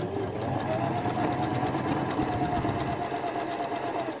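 Janome FD206 sewing machine running steadily at speed, its needle stitching a blind hem stitch in rapid even strokes, stopping near the end.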